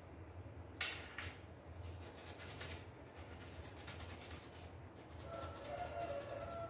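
Hand-sanding a small metal embroidery-machine part with sandpaper: a run of short scratchy rubbing strokes, the sharpest about a second in. The part is worked down so the new rotary hook will slide in past the marks left by its tight lock.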